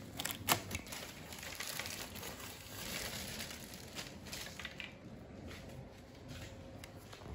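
Cardboard box and plastic packaging being handled and crinkled while a flat-pack mini table is unpacked, with a few sharp clicks near the start and small clicks and knocks of parts about four seconds in.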